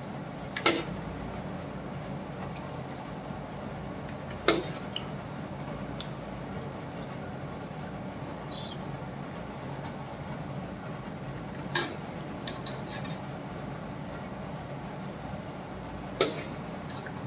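Metal ladle clinking against a metal karahi and a serving bowl while mutton curry is scooped out: four sharp clinks a few seconds apart, with a few fainter taps, over a steady background hum.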